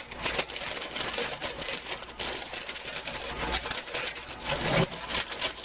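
Folded paper liner being pressed and creased into a loaf pan, crinkling and rustling with a rapid run of small clicks.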